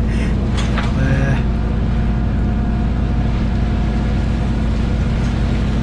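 Steady low drone of a fishing boat's engine and deck crane machinery running, with a few brief sharp sounds about a second in.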